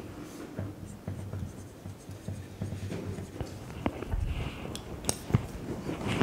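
Dry-erase marker drawing lines and writing on a whiteboard, soft strokes, with a few light clicks about five seconds in.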